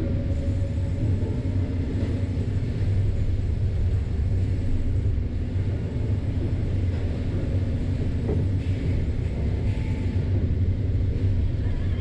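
Sawmill machinery running: a steady low rumble from the conveyors and saws of a resaw line, heard from inside the glassed operator's booth.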